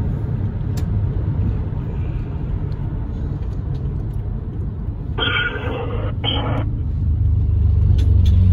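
Steady low rumble of a car driving, heard from inside the cabin, growing a little louder near the end. About five seconds in come two short bursts of a higher, muffled sound, one longer and one shorter.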